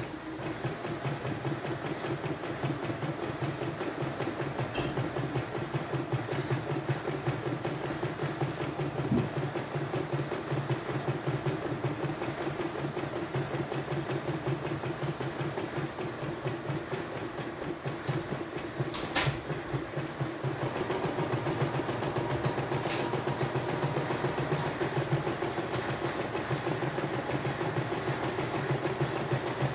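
CNY E960 portable embroidery machine stitching a design: the needle runs at a steady, fast clatter while the hoop carriage steps the fabric. It grows slightly louder about two-thirds of the way through, with a few sharp clicks along the way.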